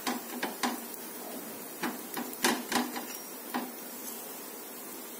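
A spatula tapping and scraping against a frying pan as it loosens the edge of a dosa: a string of short, sharp clicks, several of them close together near the middle, dying away after about three and a half seconds.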